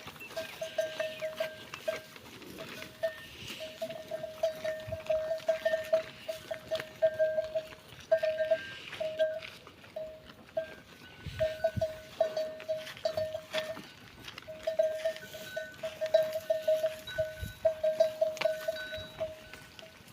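Bell on a farm animal clinking in quick runs at one steady pitch as the animal moves, with brief pauses between runs and a few louder knocks.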